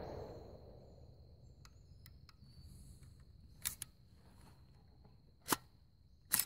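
The last of a rifle shot's echo dies away, then a few sharp, separate clicks from the AR-15-type rifle being handled, with a close double click near the end.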